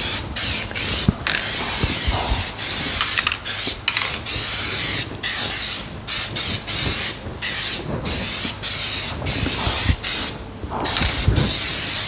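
Aerosol spray can of black paint hissing in many short bursts, each a second or less, with brief gaps between, as it is sprayed onto tyres.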